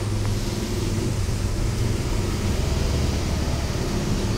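Steady low mechanical hum with a hiss over it, a little louder after the first second, like a motor or engine running.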